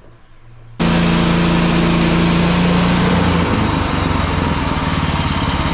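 Bandsaw sawmill's small gasoline engine running at speed. It cuts in sharply about a second in and cuts off sharply at the end, and its hum drops lower about halfway through.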